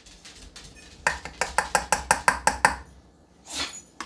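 A plastic measuring scoop tapping rapidly against the rim of a stainless steel saucepan, about a dozen quick ringing taps, knocking off a portion of homemade dog food, followed by a softer brushing sound near the end.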